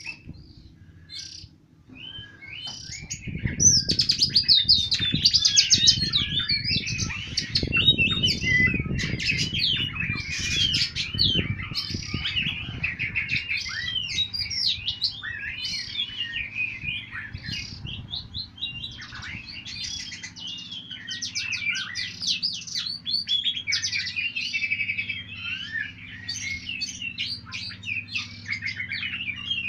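Oriental magpie-robins singing continuously in rich, varied, quickly changing whistled phrases. A low rumble runs under the song for the first few seconds to about halfway through.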